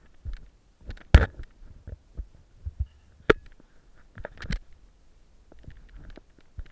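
Irregular knocks, clicks and rubbing close to the microphone as a handheld action camera is gripped and moved during a rock scramble, with the sharpest knock about a second in and more around three and four and a half seconds.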